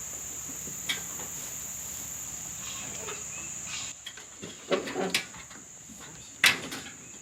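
Steady high chirring of insects, with a few sharp knocks and clatters in the second half, the loudest near the end.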